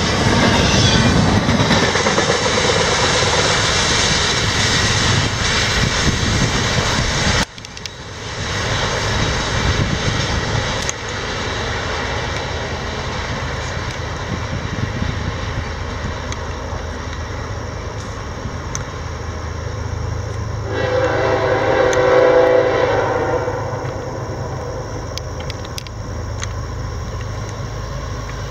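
Double-stack intermodal cars rolling past with loud wheel and rail noise, then after a cut a steady low rumble from approaching diesel locomotives, BNSF ES44C4s. About two-thirds of the way through, a locomotive air horn sounds one blast of about two seconds.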